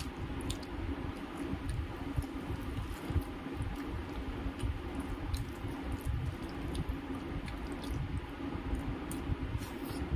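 Fingers squishing and kneading rice with ripe mango pulp and potato-paneer curry on a steel plate, with wet chewing and many small irregular clicks and smacks.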